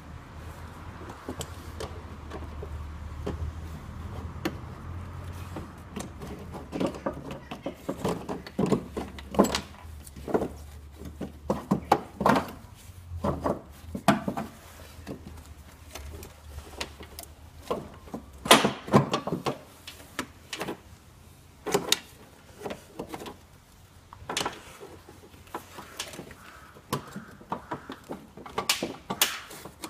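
Irregular knocks, clicks and rustling as hands work an engine mount into place in a car's engine bay, shifting parts and hoses. A low hum sits under the first few seconds.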